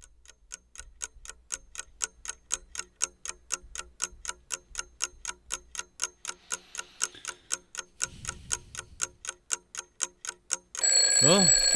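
A clock ticking fast and evenly, about three or four ticks a second. About a second before the end, a loud alarm-clock ringing breaks in with a warbling pitch.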